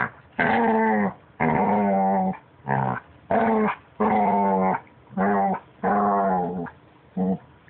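A puppy making a string of about eight drawn-out, wavering growl-whine calls, each up to about a second long, as if trying to talk.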